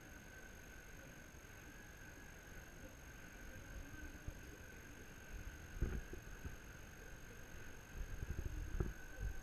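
Soft rubbing and rustling of a hand stroking a kitten lying in a lap, over a faint low rumble, with a few louder brushes about six seconds in and again near the end. A faint steady high whine sits underneath.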